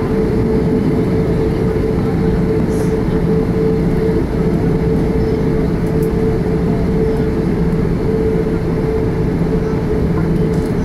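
Cabin noise of an Airbus A340-600 taxiing, heard from inside the cabin behind the wing: its Rolls-Royce Trent 500 engines and airflow give a steady drone with a steady hum.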